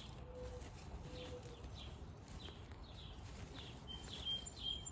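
Faint outdoor birdsong: a short, falling high chirp repeated about twice a second, joined by a few clear whistled notes near the end, over a low rumble of wind.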